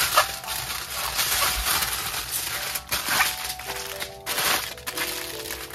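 Aluminium foil crinkling and rustling in irregular bursts as it is folded and wrapped by hand around a potato, over background music with held notes.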